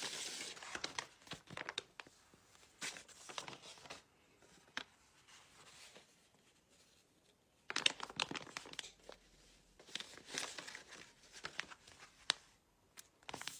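Paper being handled and crinkled close up: irregular crackling and rustling in two spells, with a quiet lull of a few seconds in the middle.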